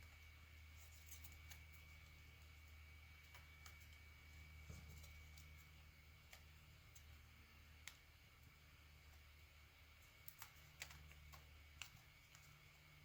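Near silence: faint, scattered ticks and crackles of paper being handled and creased, a few of them together near the end, over a steady low hum.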